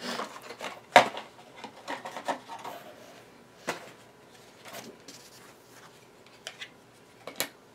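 Small items and packaging being handled and set down: scattered clicks and knocks over soft rubbing and rustling, with a sharp click about a second in.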